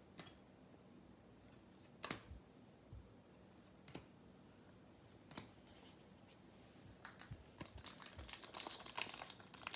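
Baseball cards being flipped through by hand, a faint tap every second or two. About seven seconds in, a foil card pack starts crinkling as it is worked open, growing louder to the end.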